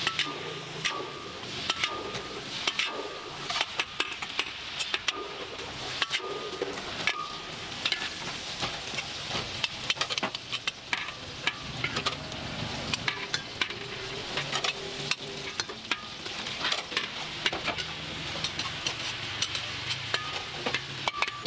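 Hot oil bubbling and sizzling hard in a wok over a charcoal fire, a steady hiss peppered with many sharp crackles and pops.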